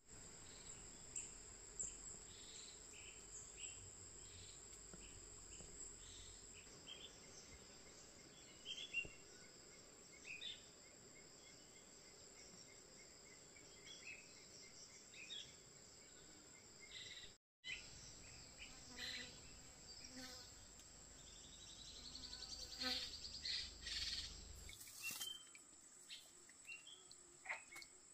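Faint forest streamside ambience: a steady high-pitched insect drone with many short bird chirps scattered through, and a few louder short sounds near the end.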